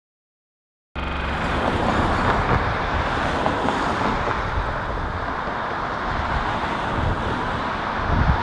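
Steady road traffic noise from cars passing on a busy street, starting abruptly about a second in after silence.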